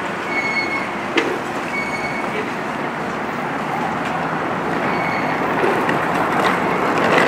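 Steady urban street noise with vehicle rumble. A short high electronic beep sounds twice in the first two seconds, with a sharp click between them.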